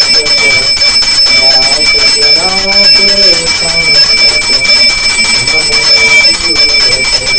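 Puja hand bell rung rapidly and without pause during aarti, a steady high ringing, with a voice chanting beneath it.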